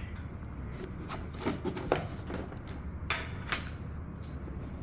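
Parts of a flat-packed shelf being handled and turned over: a handful of light knocks and rustles a few tenths of a second to a second apart, over a faint steady low hum.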